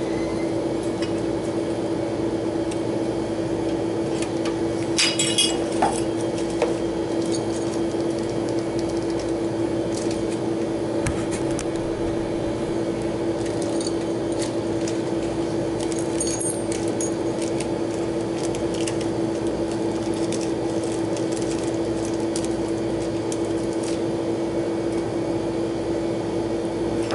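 Steady hum of running refrigeration equipment, one constant tone under a band of noise, with light metal and plastic clinks and taps as the replacement condenser fan motor and its small parts are handled, the loudest cluster about five seconds in.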